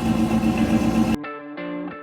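Rat rod hot rod's engine running steadily through its exhaust, cut off abruptly a little over a second in. Electric guitar music follows.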